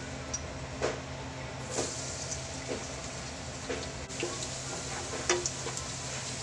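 Minced garlic frying in hot oil in a wok: a steady sizzle that grows sharply louder about two seconds in, with scattered clicks and knocks of the utensil against the pan.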